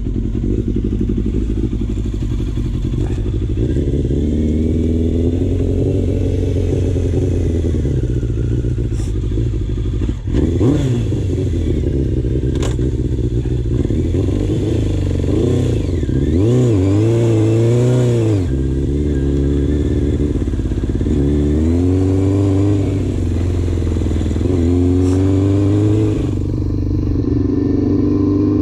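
Yamaha FZR600 inline-four sport bike engine pulling away and riding, its pitch climbing and dropping again several times as it revs up through the gears. The engine is not yet running right, and the rider is clearing it with a dose of Sea Foam while it warms up. There is a brief thump about ten seconds in.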